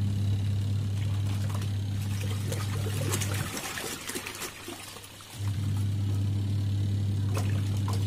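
Sharp ES-T80MW twin-tub washing machine's wash motor running with a steady low hum while the pulsator churns soapy water and clothes. The motor stops about three and a half seconds in and starts again about two seconds later, the usual stop-and-reverse rhythm of a twin-tub wash cycle, while the water keeps sloshing through the pause.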